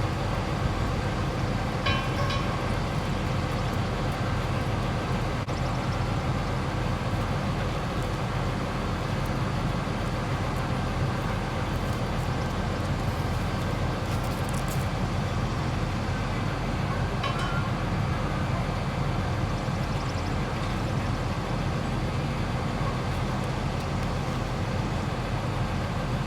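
A farm machine's engine running steadily at a constant low pitch while a load is held or positioned, with two brief faint higher-pitched sounds about two seconds in and past the middle.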